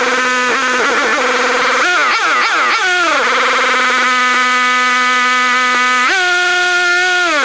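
Honda EU2000i inverter generator engine running at idle and surging: its pitch swings up and down several times about two to three seconds in, holds steady, then steps up about six seconds in and drops back near the end. The owner takes the surging for a lean idle mixture.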